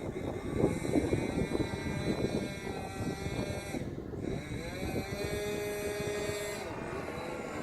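1.20 four-stroke glow engine of a large radio-controlled DHC-1 Chipmunk model running, its propeller drone gliding up and down in pitch and settling into a steadier tone in the second half.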